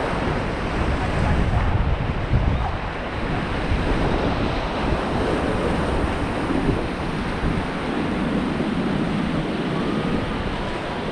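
Fast-flowing river water rushing around a raft, with wind buffeting the microphone.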